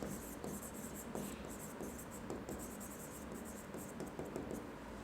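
Faint scratching of a pen writing in quick, short strokes.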